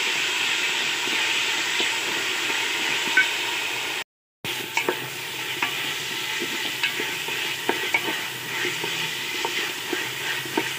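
Soaked, drained rice sizzling as it fries in ghee and browned sugar in a metal pot, with a spatula scraping and stirring it against the pot in scattered ticks. The sound cuts out for a moment about four seconds in; after that the scraping ticks come more often.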